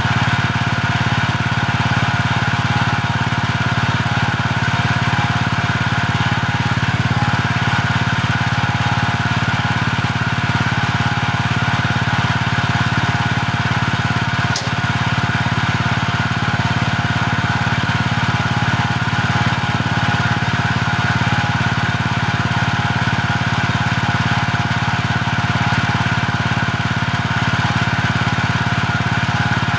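Small engine of a stand-on compact loader idling steadily, with one brief click about halfway through.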